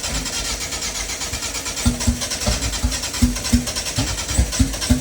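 Race car engine being cranked on the starter and firing unevenly, with irregular low pulses about two or three a second, as it struggles to start.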